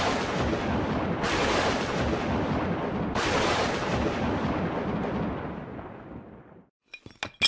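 Cinematic logo-sting sound effect: three heavy booming hits, each a wide rush of noise that decays, the second about a second in and the third about three seconds in, the last fading out over about three seconds. A few sharp clicks near the end.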